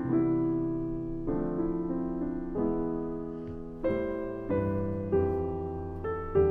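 Background piano music, slow chords and notes struck every half second or so, each fading before the next.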